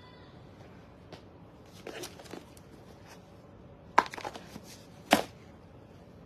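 Packaging being handled: rustling about two seconds in, then two sharp clicks or knocks about a second apart, the loudest sounds, as boxes and wrapping are searched through.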